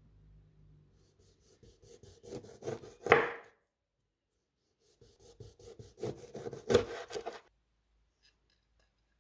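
Kitchen knife slicing a lemon on a wooden chopping board: two runs of quick rasping strokes as the blade saws through, each ending in a louder stroke, about three and seven seconds in.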